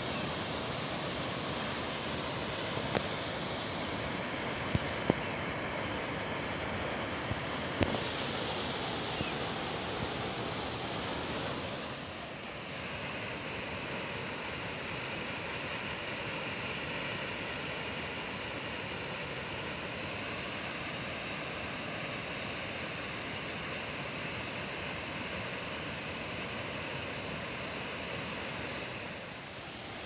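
Steady rushing of a tall waterfall, heard from a distance, with a few faint clicks in the first eight seconds. The rush drops slightly and changes character about twelve seconds in.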